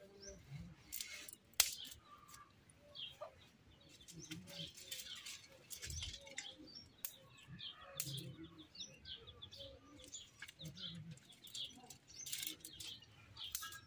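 Dry twigs rustling and cracking as they are handled for kindling, with sharp snaps scattered through, and small birds chirping in the background.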